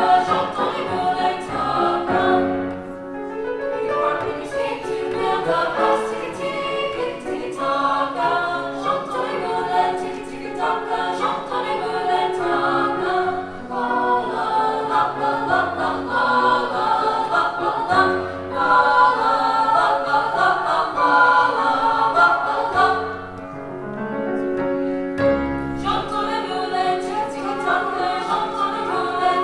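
A children's choir singing a song together, with sustained low accompanying notes beneath the voices.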